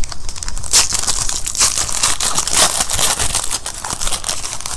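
Foil wrapper of a trading card pack being torn open and crinkled by hand, a dense run of sharp crinkles, loudest about a second in and again around two seconds in.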